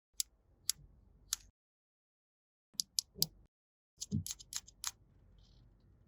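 Hard plastic toy pieces clicking and tapping as they are handled: three sharp clicks, then a short pause, a few more, and a quicker run of about eight clicks near the end.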